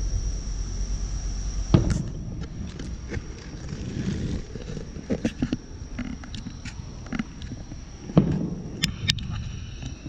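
Crickets trilling steadily, with a few dull thumps and knocks breaking in, the loudest about two seconds in and again about eight seconds in.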